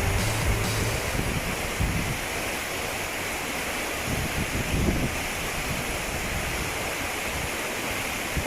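Waterfall and stream water rushing, a steady even hiss.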